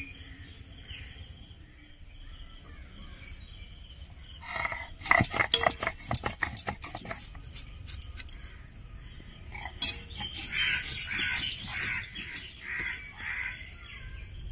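Crisp cutting strokes of a red onion being sliced on a boti, a fixed curved floor blade, in two spells: a burst of sharp knocks a few seconds in and a run of quicker strokes near the end. Crows caw faintly in the background.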